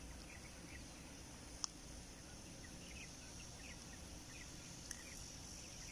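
Faint outdoor ambience: a steady high insect drone with a few faint chirps scattered through it, and a single sharp click a little under two seconds in.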